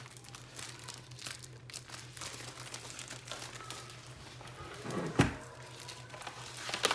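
Crinkling of a foil (mylar) balloon being handled. There is a louder thump about five seconds in and a sharp click near the end.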